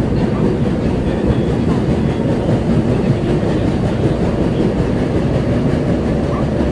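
Interior running noise of an Osaka Metro 20 series subway car at speed: a steady loud rumble of wheels on rail with clattering. The wheels have flat spots, which the uploader calls very severe on this set.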